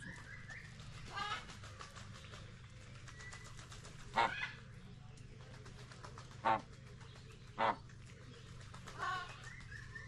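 Birds calling: five short calls, a second or more apart, over a steady low hum.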